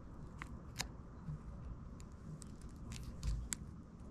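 Dried pine needle coils crackling and rustling in the hands as a curved needle is worked through the basket and artificial sinew is drawn under a stitch, with scattered small sharp clicks.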